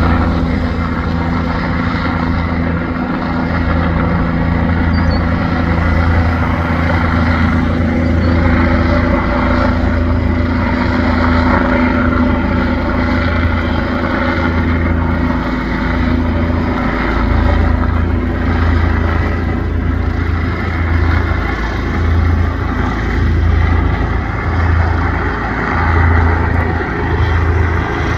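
Medical helicopter flying low overhead: a steady rotor beat and engine sound. The low beat swells and dips now and then in the second half.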